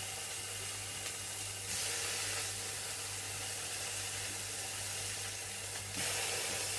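Cod fillet sizzling in butter in a nonstick frying pan just after being turned over: a steady hiss that gets louder about two seconds in and again near the end.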